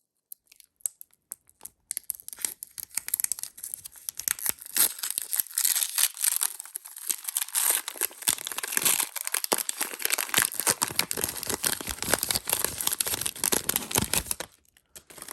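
Foil wrapper of a Pokémon Evolutions booster pack being torn open and crinkled: a dense, crackling rustle that builds after a couple of seconds and stops shortly before the end.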